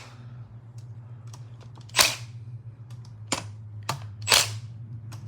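Sharp clicks of a hand tool breaking loose and undoing the small bolts that hold a plate by the cam chain on a Yamaha R1 engine, four clicks at uneven intervals, the first the loudest. A steady low hum runs underneath.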